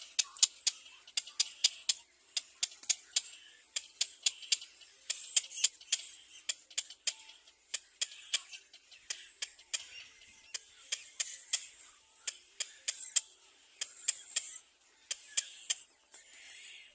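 Baby birds in the nest giving a rapid run of short, sharp, high-pitched chips, about three or four a second, over a faint high hiss.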